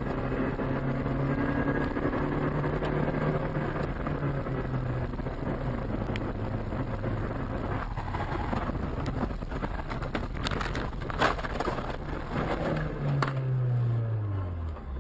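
Car engine and road noise heard through a dash camera in a moving car, with a steady low hum. About ten seconds in comes a run of sharp knocks and thumps, and near the end the engine note falls steeply as the car slows.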